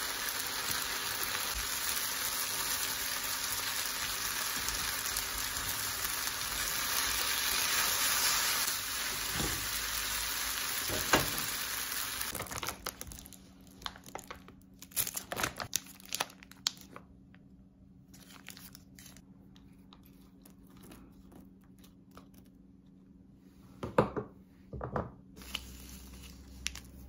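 Stir-fried somen noodles and vegetables sizzling steadily in a frying pan, with a couple of clicks from the spatula. About twelve seconds in, the sizzle stops and plastic food packaging crinkles and tears in short bursts as a soup pouch and its small sachets are opened by hand.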